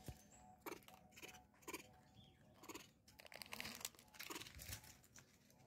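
Faint, irregular crunching clicks of a macaque chewing food close to the microphone.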